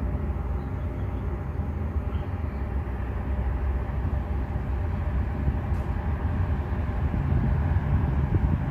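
A steady low rumble of outdoor background noise with a faint steady hum above it, and no distinct events.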